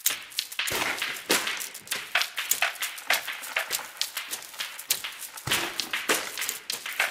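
Hand percussion: a quick, irregular run of sharp clicks and taps, some stronger strikes among lighter ones, with no steady tone beneath.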